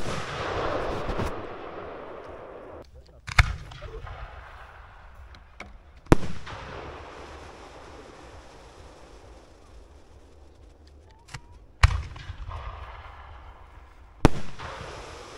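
Fireworks going off: about five sharp bangs a few seconds apart, each trailing off over a second or two.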